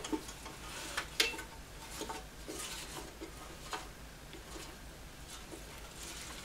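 Evergreen sprigs rustling as they are pressed down into a glass box by hand, with a few light clicks against the glass, the sharpest about a second in.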